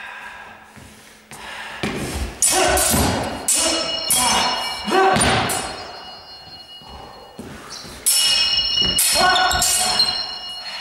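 Steel swords, a sidesword against a longer sword, clashing several times, the blades ringing after the hits, with thuds of footwork on the floor.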